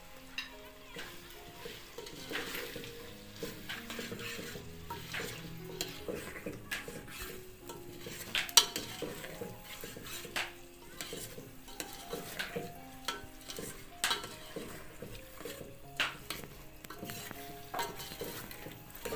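A ladle stirring and scraping a thick brinjal-and-potato curry in a metal pot on a wood-fired stove, with frequent clicks and knocks of metal on the pot, the loudest about eight seconds in, over a low sizzle.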